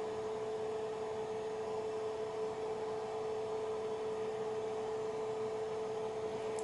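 Creativity ELF 3D printer idling just after power-on: a steady mid-pitched hum over a faint hiss, unchanging throughout.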